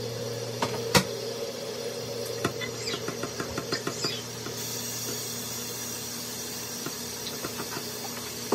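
Water running from a kitchen faucet's spray hose onto hair and into a stainless steel sink while hands scrub shampoo lather through it. A sharp knock comes about a second in, and a run of small clicks and taps follows a couple of seconds later.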